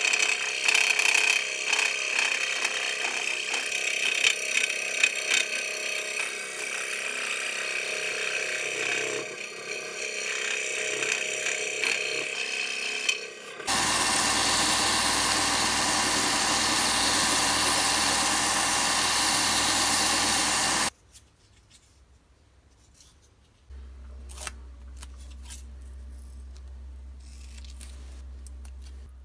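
A scroll saw cutting a thin strip of pale wood, its blade chattering steadily. About fourteen seconds in it stops and a belt sander runs steadily for about seven seconds with the wood held against the belt, then stops suddenly. Near the end, a few small clicks of scissors snipping over a low hum.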